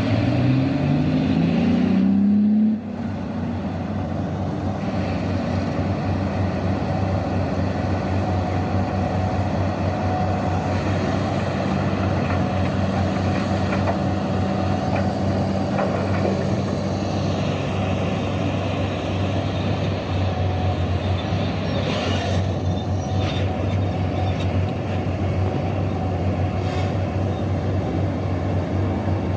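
Heavy diesel engine of a large excavator revving up, its pitch rising for about two and a half seconds before it cuts off abruptly. A steady low engine drone follows.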